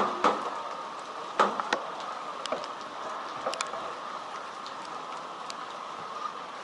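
Typhoon rain falling steadily, with scattered sharp drip taps and knocks, the loudest right at the start and about a second and a half in.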